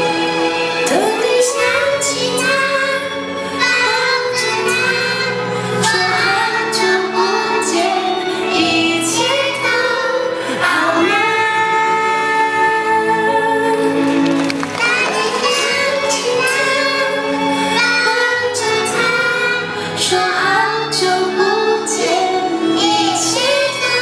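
A group of young children singing a song together over instrumental music accompaniment.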